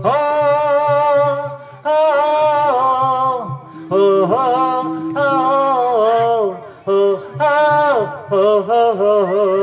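A man singing unaccompanied in long, wavering held notes that slide between pitches, with short breaths between phrases. This is the puppeteer's song in a Malay wayang kulit shadow-puppet play.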